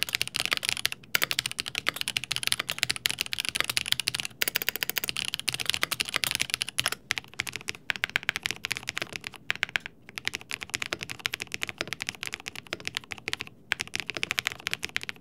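Custom tenkeyless mechanical keyboard with Gateron Luna switches and TypePlus stabilizers in a Geonworks Frog TKL case, typed on fast and continuously in a post-repair typing test. It makes a dense stream of key clacks with brief pauses every few seconds.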